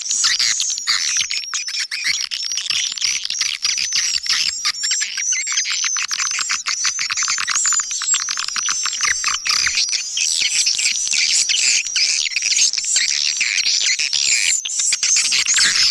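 Many swiftlets chirping together: a dense, unbroken mass of overlapping high twittering calls.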